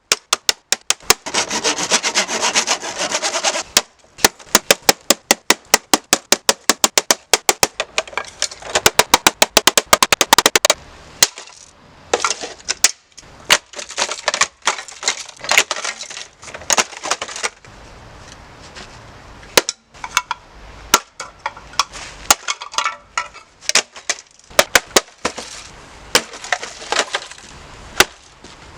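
A coffee machine being smashed: rapid repeated blows, several a second, with crunching and cracking as its casing breaks apart.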